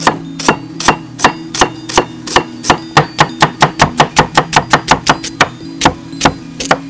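Kitchen knife slicing a carrot on a round wooden chopping board: a regular run of sharp knocks of the blade on the wood, quickening to about five a second in the middle, then slowing again near the end.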